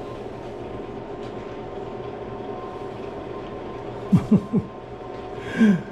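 Steady machine hum with several constant tones. About four seconds in come three short sounds that each fall quickly in pitch.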